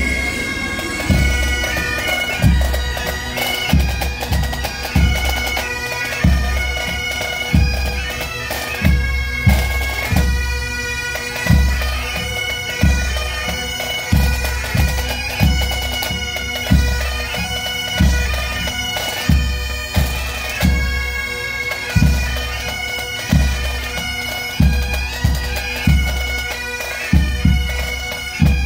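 Pipe band playing: Highland bagpipes sound a melody over their steady drone, with a regular bass-drum beat underneath.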